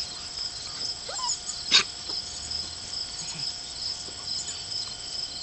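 Puppy whimpers and yips, with one sharp yip just under two seconds in, over a steady pulsing chorus of insects chirping.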